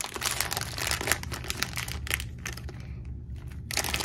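Plastic packaging crinkling and rustling as small charm packets and a clear bag are handled and pulled open, with a brief lull about three seconds in.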